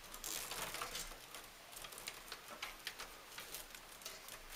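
Faint rustling, scraping and small clicks of cables and Velcro cable ties being handled.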